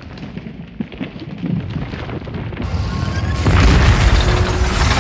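Film battle sound mix: orchestral score under deep rumbling and booms that swell, jumping much louder about three and a half seconds in as giant bladed war machines churn out of a forest.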